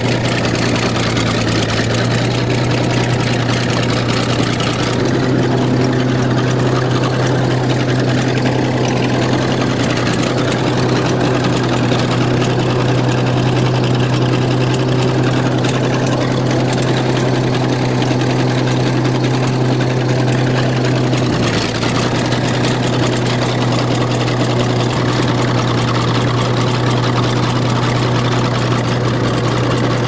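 A vehicle engine running steadily at one speed, close to the microphone. Its tone shifts slightly about five seconds in and again about 21 seconds in.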